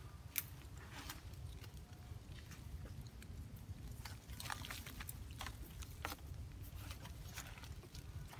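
Scattered soft clicks, snaps and rustles of a baby macaque scrambling over a log and twigs, over a steady low rumble.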